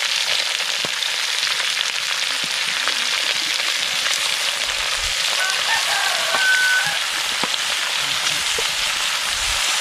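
Raw frog pieces sizzling steadily as they are pushed from a metal tray with a wooden spatula into a hot wok of oil with sautéing onion, garlic and ginger, with a few light knocks of tray and spatula.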